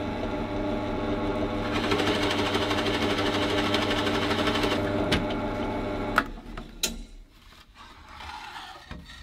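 Bench pillar drill running slowly with a 1-inch Forstner bit boring into a hardwood plank. The motor hums steadily and the cutting noise thickens for about three seconds as the bit bites into the wood. The drill stops about six seconds in, followed by a single knock.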